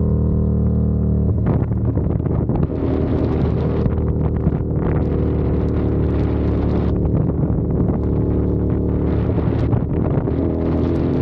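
CFMOTO 450SR's parallel-twin engine running while the motorcycle is ridden, the revs rising and settling a few times, with wind buffeting the microphone.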